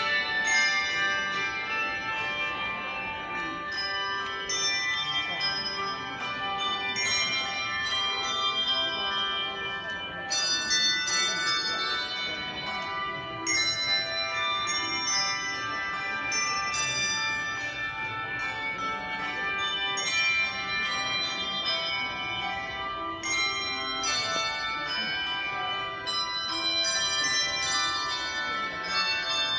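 Bells rung in a continuous run of struck notes, several a second, each ringing on into the next.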